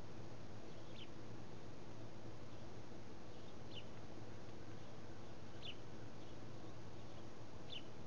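House sparrow chirping: four short single chirps, about two seconds apart, over a steady low background hum.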